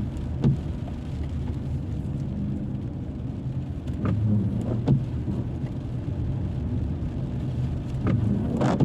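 A car driving on the road: a steady low rumble of engine and tyres, with a few brief thumps, about half a second in, near five seconds and near the end.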